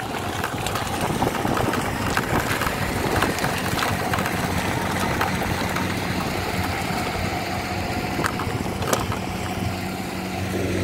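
Engine of a river sand boat running steadily under way; its low, even hum becomes clearer about four seconds in.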